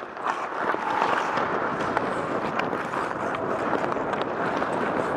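Ice hockey skate blades carving and scraping across the ice, a steady hiss with a few faint clicks.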